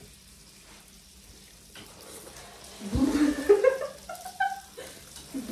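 A baby vocalizing in short, high, wavering sounds that rise in pitch, starting about halfway through.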